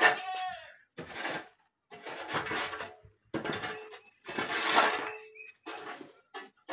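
A short-handled bundle broom sweeping dust and grit across a bare, rubble-strewn floor in about seven brisk strokes, roughly one a second. A brief squeaky scrape sounds at the very start.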